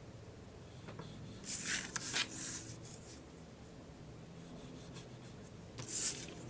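Paper and cardstock being handled, sliding and rustling: a cluster of soft swishes about a second and a half in, and another near the end.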